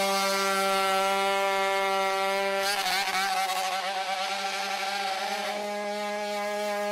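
Boston Dynamics WildCat quadruped robot's on-board combustion engine running at a steady high pitch. The pitch wavers for a few seconds in the middle, then settles again.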